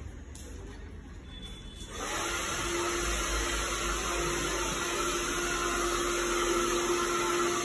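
Handheld hair dryer switched on about two seconds in, then blowing steadily with a constant motor hum.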